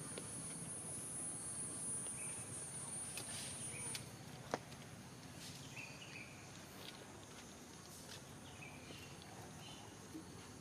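A steady high-pitched insect drone that cuts off suddenly about four seconds in, with a few short chirps scattered through and a single sharp click just after the drone stops.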